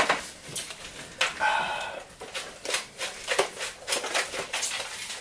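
Paper bags rustling and crinkling, with a run of light clicks and taps as things are handled on the table, and a brief voice sound about a second in.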